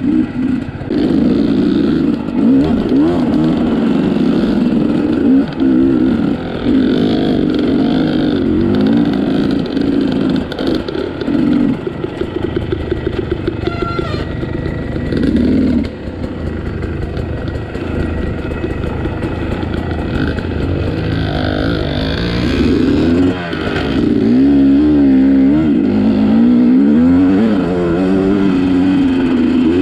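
Dirt bike engine running close by, its pitch rising and falling again and again as the throttle is opened and closed, with a slower, evenly pulsing stretch about halfway through and harder running near the end.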